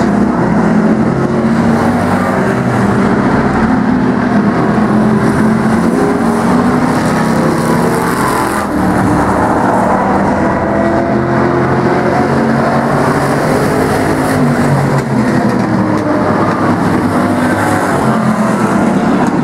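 Engines of several demo-class race cars and pickup trucks running laps together on an oval track, a steady loud mix of engines under throttle.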